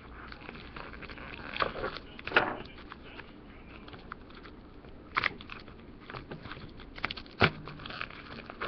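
Plastic blind-basket toy packaging crackling and clicking as it is handled and pried open, with irregular sharp snaps, the loudest about two seconds in and again near the end.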